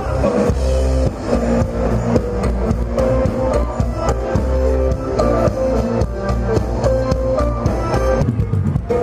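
Live rock band playing amplified music with guitar and drums. The deepest bass drops away near the end.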